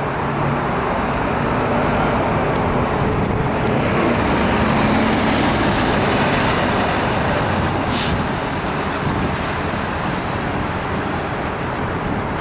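Box delivery truck driving past on the road, its engine and tyre noise swelling as it goes by and then fading into steady traffic noise, with one short hiss about eight seconds in.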